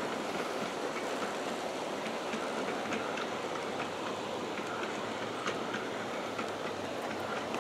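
G-scale (1:29) Aristo-Craft model passenger train running at 50% power: a steady rolling noise of metal wheels on the rails, with a few faint clicks.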